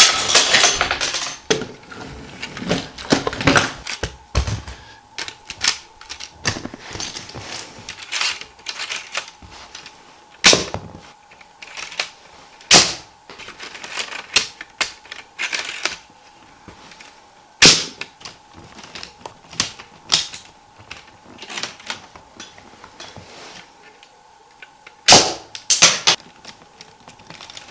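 Home-built LEGO Technic toy gun: a loud crack and clatter as the shot knocks the target over, then irregular plastic clicking and ratcheting as the mechanism is worked by hand, broken by a few louder single snaps.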